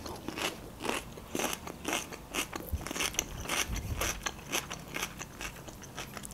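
A person chewing a mouthful of Greek salad: a string of short, irregular clicks, several a second.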